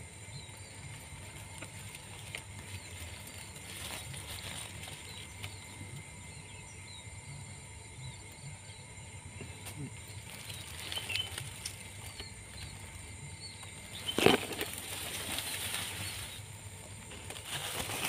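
An air rifle fires once, a single sharp report about fourteen seconds in, followed by about two seconds of wing flapping and rustling. Faint bird chirps are heard before it.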